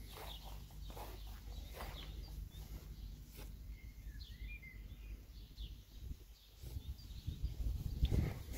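Outdoor background noise with a few short bird chirps. A louder low rumble builds over the last two seconds.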